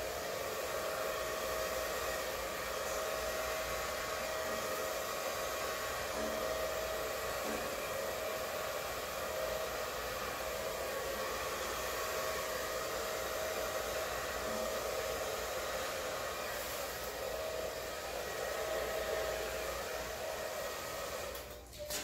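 Handheld blow dryer running steadily, a whine over its airflow hiss, as it blows air across wet acrylic paint on a canvas; it is switched off near the end.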